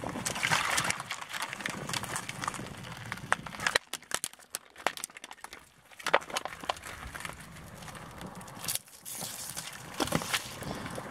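Car tyre rolling slowly over plastic cups and packs of fruit jelly on asphalt: plastic crackling and clicking as it is crushed, and the jelly being squashed under the tread. The sound comes in several short takes, breaking off suddenly about four and nine seconds in.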